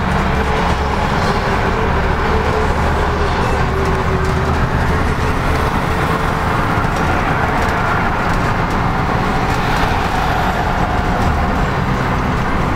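Cabin noise of a LiAZ-5256.13 city bus driving at highway speed: a steady low engine drone mixed with tyre and road noise. A faint whine slowly shifts in pitch.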